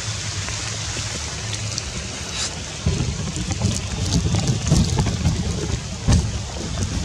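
Wind buffeting the microphone, a low rumble that rises and falls, over a steady hiss of rain in the trees with scattered small drip ticks.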